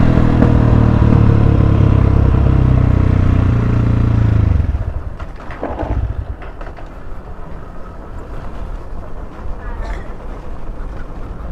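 Dirt bike engine running loudly under throttle with its pitch slowly sinking. About four and a half seconds in, the throttle is closed and the engine falls to a much quieter low note as the bike coasts, with wind and road noise.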